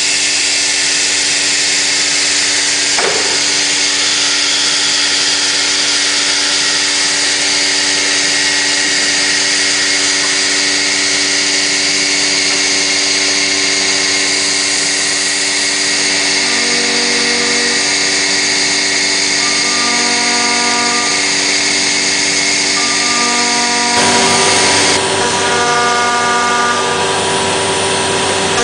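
SHMS1828D CNC machine cutting MDF: a steady spindle whine over continuous cutting noise. From about halfway, shorter tones switch on and off at changing pitches, and the high end grows louder near the end.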